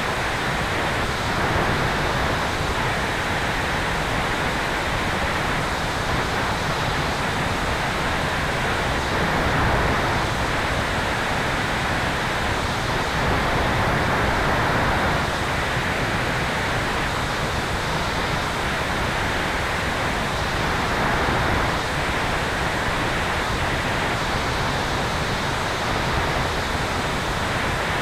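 Steady rush of wind and airflow over an electric Sonex Xenos motorglider in flight, heard at the tail, with a few slight swells in strength. No distinct motor whine stands out from the rush.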